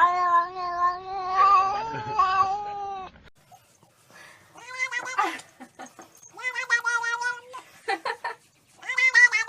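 A cat yowling in one long, drawn-out call of about three seconds, followed after a pause by a series of shorter meows.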